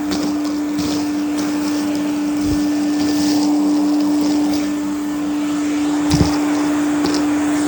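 Hoover Aquamaster vacuum cleaner running steadily, its motor holding one even hum over the rush of air. Twice a brief low knock sounds through it, the second, about six seconds in, the louder.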